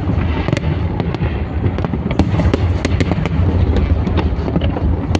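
Fireworks going off in a dense, continuous barrage: many sharp cracks and pops in quick irregular succession over a steady low rumble of bursts.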